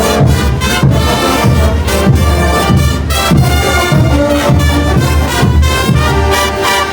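Bolivian brass band playing a loud, steady tune, its brass section carrying the melody over a regular drum beat.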